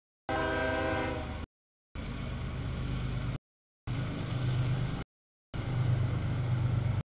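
CSX intermodal freight train's diesel locomotive horn, ending about a second in, followed by the steady low rumble of the locomotive and the cars rolling past. The sound drops out completely for about half a second four times.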